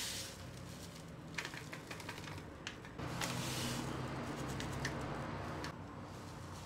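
Sodium hydroxide granules poured from a bag into a stainless steel bowl on a kitchen scale: faint scattered ticks of granules striking the metal, then a soft steady hiss of a fuller pour from about three seconds in that stops near six seconds.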